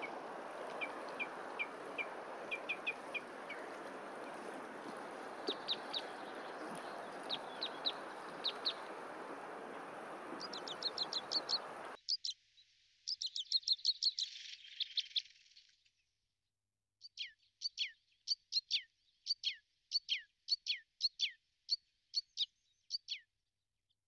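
A steady hiss of background noise with small birds chirping now and then, which cuts off abruptly about 12 s in. Then a great tit calls: a fast run of short, sharp notes, each sliding down in pitch.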